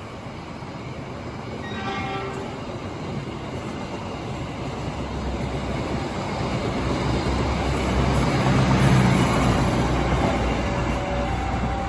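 Passenger train rolling past on the tracks: a steady rumble of wheels on rail that grows louder, loudest about nine seconds in. A short horn toot sounds about two seconds in.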